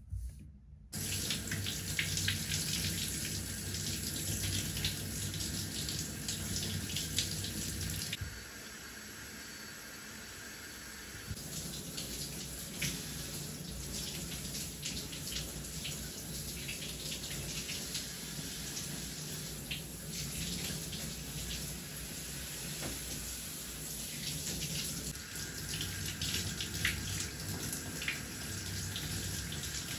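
Handheld shower head spraying water over bare feet and splashing into a bathtub. The spray starts about a second in and runs steadily, going quieter for a few seconds about a third of the way through.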